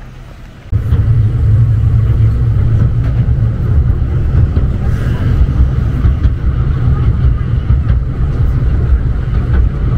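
Retro tram running along its street track: a steady low rumble that sets in suddenly under a second in.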